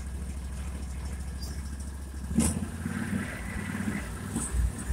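Argo Frontier 6x6 amphibious ATV's engine running steadily as the machine drives into a tight skid-steer turn. A sharp knock comes about two and a half seconds in, after which the running gets louder and rougher, with a few more knocks near the end.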